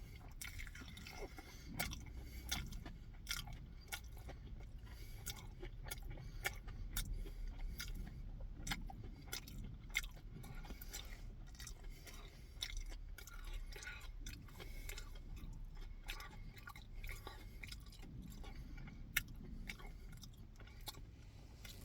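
A person chewing food, with many small irregular mouth clicks.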